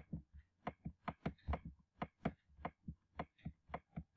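A run of short sharp clicks, about five a second and unevenly spaced: computer mouse button clicks, each click laying down one dash of a dashed line being drawn on screen.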